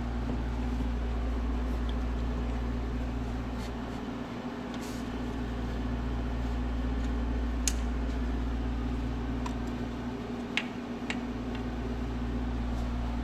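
Steady low electrical hum of a running machine, with a few sharp small clicks in the second half.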